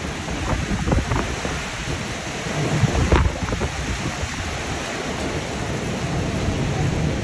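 Hurricane wind and driving rain, with gusts buffeting the microphone in a continuous low, rumbling roar. A stronger gust comes about three seconds in.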